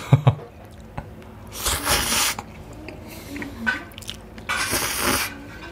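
A man slurping spicy Buldak jjolbokki instant noodles off chopsticks, twice: two hissing slurps each under a second long, about three seconds apart.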